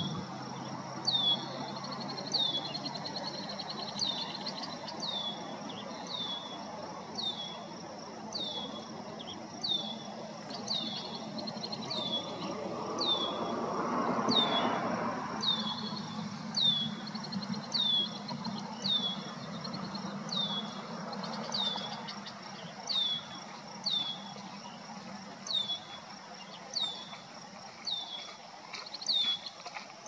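Red-winged blackbird repeating a short, high, down-slurred alarm whistle about once every second, scolding a young red-tailed hawk perched close by. A low rushing noise swells and fades midway.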